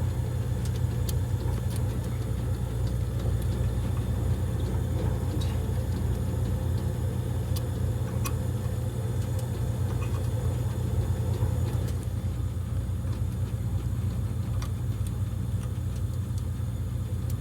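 Steady low hum of an old Bryant gas heater running, its valve solenoid on 12 V DC power instead of AC.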